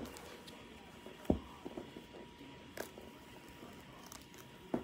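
Faint handling sounds of a plastic comb being run through a doll's synthetic hair, with a soft knock a little over a second in and a few faint clicks.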